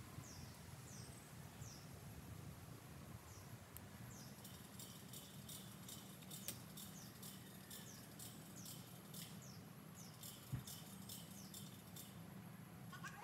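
Quiet woodland ambience: faint, repeated high bird chirps over a low steady hum, with one soft knock about ten seconds in.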